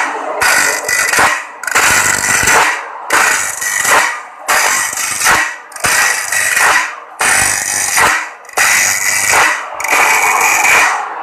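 Bench grinder's abrasive wheel grinding the teeth of a band sawmill blade on a homemade automatic sharpener, in regular strokes nearly every second and a half, one tooth per stroke, with a brief gap between strokes as the blade is advanced.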